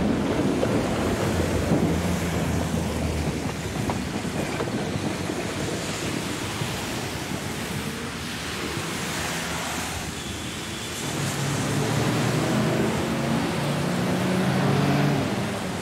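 Traffic on a wet city street: a steady hiss of tyres on the wet road, with engine hum swelling as vehicles pass close, once near the start and again in the last few seconds.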